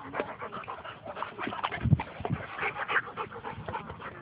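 A dog panting in quick, repeated breaths, with a louder low thump about two seconds in.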